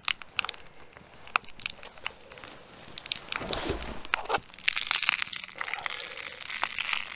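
Pierogies being fried in olive oil in a small pot on a tiny wood-burning stove: scattered clicks and scrapes of the pot and food being handled, with a denser hissing, rustling stretch in the second half.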